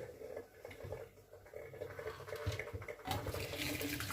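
A few faint clicks and knocks of the kettle being handled, then about three seconds in, water starts splashing steadily into a sink.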